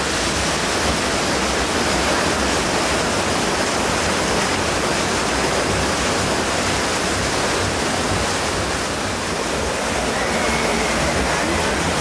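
Rushing water in a river rafting ride's channel: water churning along the flume and pouring over its walls, a steady, even noise.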